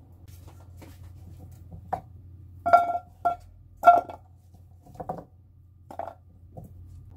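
Chunks of raw daikon radish knocking into a metal pan as they are pushed off a wooden cutting board: a string of separate knocks, each with a short ring, the loudest a little under three and about four seconds in.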